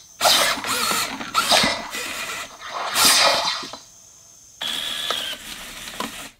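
Servo motors of a Robosen Buzz Lightyear robot figure whirring and buzzing as it moves its arms and legs through a preset stunt action. There is a short pause a little past the middle.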